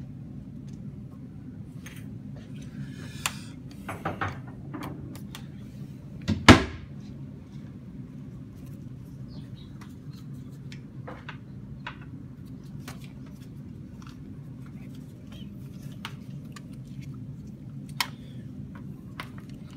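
Clinks, clicks and knocks of lab apparatus being handled: an electrode being fitted into a cell on a metal clamp stand and alligator-clip leads being moved, over a steady low hum. One loud knock about six and a half seconds in and a sharp click near the end stand out.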